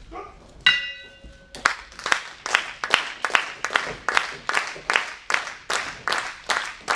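A wrestling ring bell struck once, ringing for under a second to start the match, followed by the audience clapping in unison in a steady rhythm, about two and a half claps a second.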